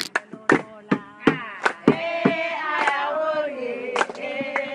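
Several voices singing together over sharp percussive strokes, about two to three a second. The singing swells about a second in with gliding notes, then holds.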